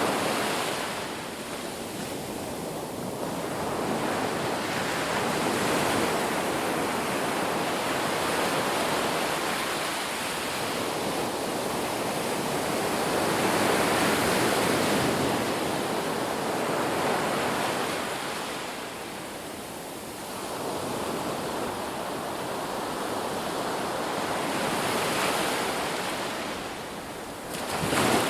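Ocean surf breaking on the shore, a steady wash of water that swells and ebbs every few seconds, with a sharper, louder wave crashing just before the end.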